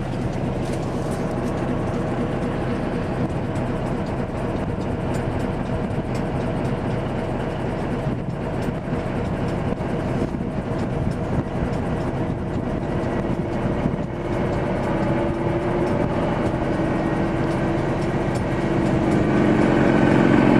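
Heavy truck engine heard from inside the cab, a steady drone under load while driving over sand dunes. In the second half a whining note comes in and rises slightly, and the sound grows louder over the last few seconds.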